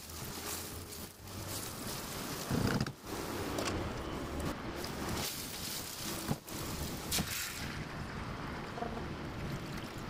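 Chopped onions sizzling in oil in a stainless steel pan, stirred with a wooden spoon that scrapes and knocks against the pan a few times. About three-quarters of the way through, the high sizzle dies down as liquid goes into the pan.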